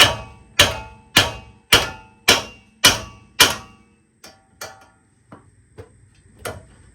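A hammer strikes metal to knock the outer tie rod end loose from the steering knuckle on a GMC Yukon's front end. There are seven hard, ringing blows in a steady rhythm, a little under two a second, then several lighter, uneven taps.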